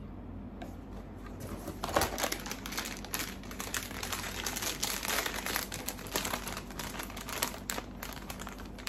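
Plastic blind-bag packet crinkling and rustling as it is handled and opened. The crinkling starts about a second and a half in and is loudest just after.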